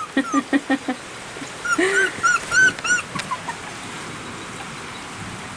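Four-week-old cockapoo puppies whimpering and yipping: a quick run of short low yelps at the start, then about five short high whines around two seconds in. A steady hiss of rain lies under them.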